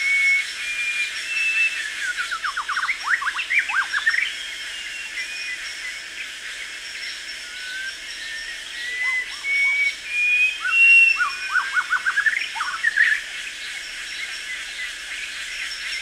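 Early-morning rainforest ambience: birds whistling short, clear level notes over and over, with two flurries of quick sweeping notes, a few seconds in and again past the middle. A steady faint high-pitched drone runs underneath.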